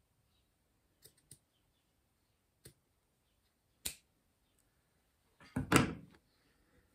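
Scissors snipping through thick cotton mop strands, a few separate sharp snips, then a louder knock and rustle about five and a half seconds in.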